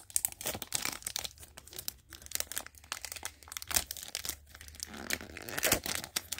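Clear plastic shrink-wrap on a trading-card deck box crinkling in quick, irregular crackles as fingers pick and pull at it, trying to get it open.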